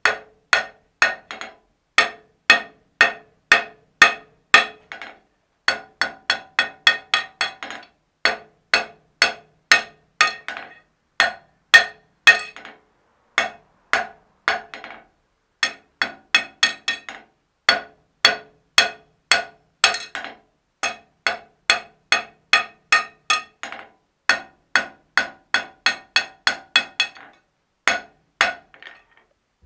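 Blacksmith's hand hammer striking hot iron on an anvil in a steady rhythm of about two blows a second, with lighter taps in between. Each blow leaves a short metallic ring from the anvil. The hammering stops just before the end.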